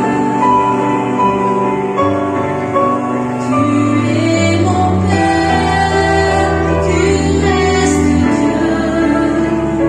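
A woman singing a French hymn (cantique) into a microphone, amplified through a PA. She sings long held notes over accompaniment that holds low notes, changing every few seconds.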